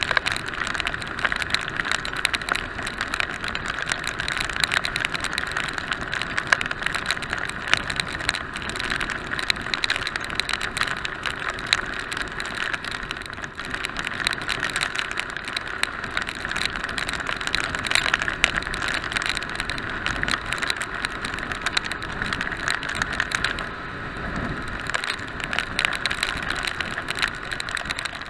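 Riding noise of a motorcycle at road speed in a downpour: a steady rush of wind and wet road, with a dense crackling patter of raindrops striking the action camera.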